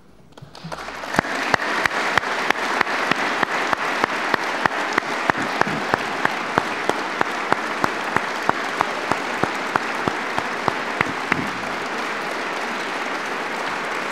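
Audience applauding, starting about half a second in and quickly swelling to a full, steady round. Sharper claps stand out through it at an even beat of about three a second.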